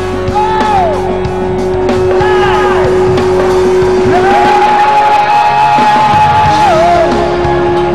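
Live rock band playing an instrumental break: an electric guitar lead with swooping bent notes, then a long held high note that wavers and drops away, over a sustained chord and the rhythm section.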